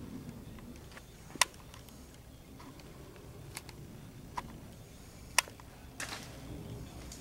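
Faint room noise broken by a few sharp, isolated clicks at uneven intervals, the two loudest about a second and a half in and again about five and a half seconds in.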